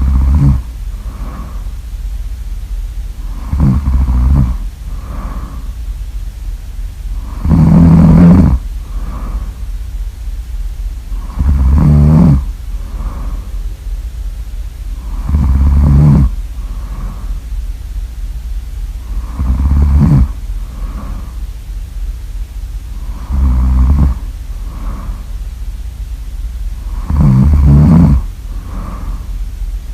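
Loud snoring in an even rhythm, one long snore about every four seconds, each followed by a shorter, fainter breath. A low steady hum runs underneath.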